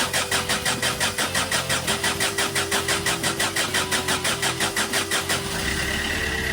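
2012 Peugeot Bipper engine being cranked by its starter for about five seconds, with an even, rapid chugging of about six beats a second. Near the end it catches and settles into a steady idle. This is the engine starting up after its timing chain kit has been replaced.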